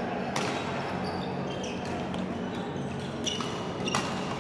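Badminton rally: sharp cracks of rackets striking a shuttlecock, a few seconds apart, with short squeaks of court shoes. The sound echoes through a large hall.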